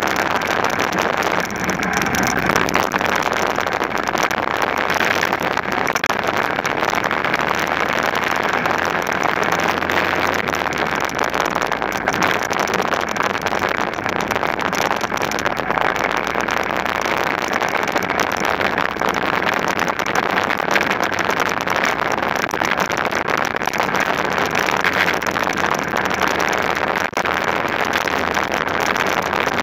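Racing kart engine running hard at racing speed, heard from an onboard camera, with wind rushing over the microphone.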